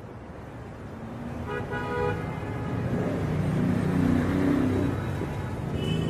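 City traffic with car horns honking: one horn sounds about a second and a half in and another starts near the end, over a traffic rumble that grows louder.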